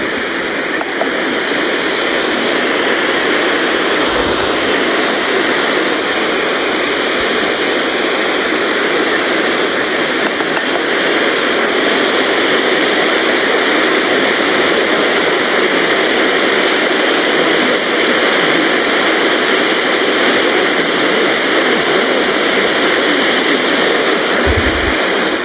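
Steady, loud hiss of radio static from an FM receiver with no signal to lock onto, cutting off abruptly at the end.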